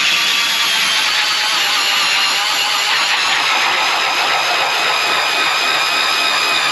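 Powered ice auger running steadily as it bores a hole through the ice. Its pitch sags slightly over the first few seconds as the blades bite.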